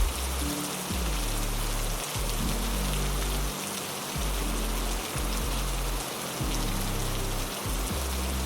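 Heavy rain falling steadily, an even hiss, with low held music notes underneath that change about every second.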